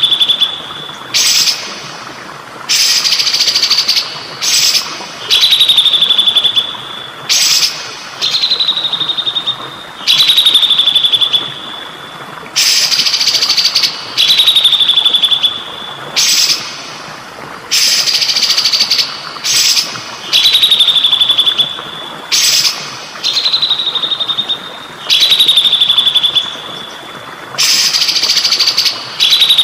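Songbird masteran recording looping over trickling water. Harsh, rasping bursts alternate with a clear whistle that slides down and holds, repeating every couple of seconds.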